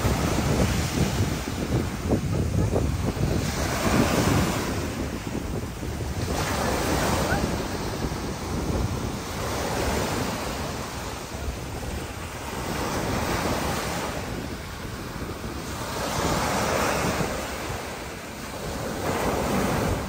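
Small ocean waves breaking and washing up on the beach, swelling and falling back about every three seconds. Wind buffets the microphone.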